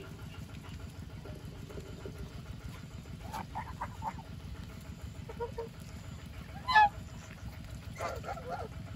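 Domestic geese honking in short clusters of calls, the loudest single honk about seven seconds in, over a steady low background noise.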